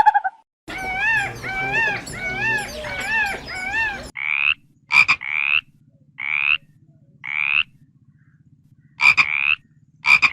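Repeated animal calls: a quick run of short chirps that rise and fall in pitch, then, after an abrupt change about four seconds in, short high calls roughly once a second with a few sharp clicks, over a faint low hum.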